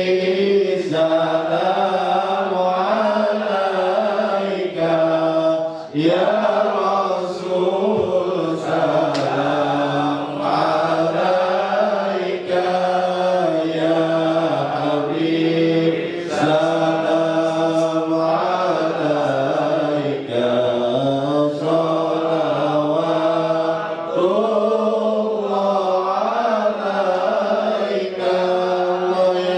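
A man chanting a devotional Maulid hymn solo into a microphone: a slow, ornamented melody in long phrases of a few seconds each, with short breaths between them.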